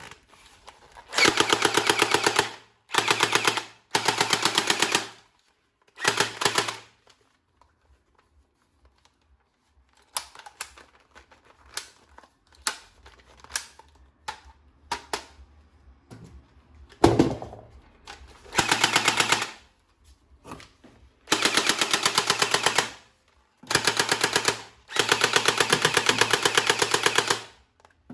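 Toy M416 automatic gun firing in bursts of rapid clicking shots, about seven bursts from half a second to several seconds long. Quieter scattered clicks and a single thump come in the gap through the middle.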